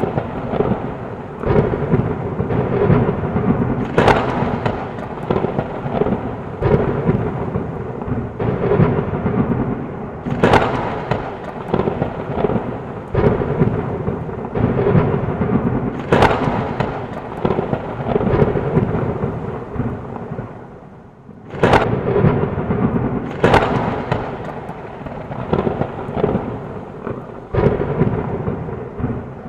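Thunderstorm: heavy rain with a low rumble of thunder and sharp thunder cracks every few seconds. About 20 seconds in the storm briefly eases, then a sudden crack breaks in.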